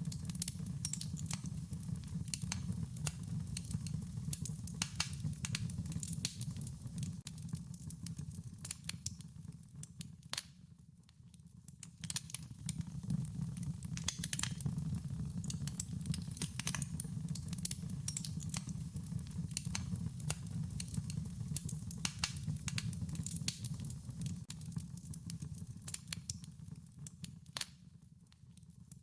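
Wood fire crackling, with irregular sharp pops and snaps over a steady low rumble of flames. The sound dips quieter for a moment about ten seconds in and again near the end.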